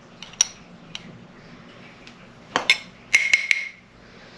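Metal teaspoon clinking against a glass spice jar while scooping out turmeric: a couple of light clinks, then a quick run of ringing taps over a second or so past the middle.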